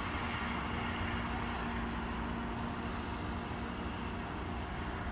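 Steady distant engine noise with a constant low hum running through it.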